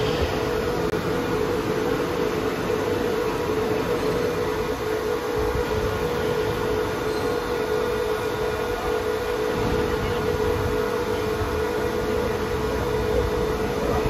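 Steady machine hum with one constant mid-pitched tone from an idling CNC servo turret punch press, with no punching strokes.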